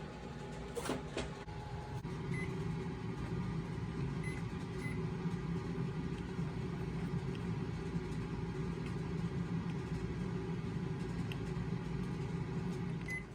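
A kitchen appliance running with a steady low hum, with a few faint short high tones, cutting off abruptly right at the end.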